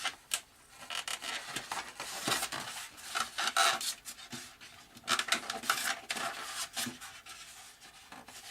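A servo being worked by hand into its slot in a foam model-plane fuselage: irregular rubbing and scraping with small clicks.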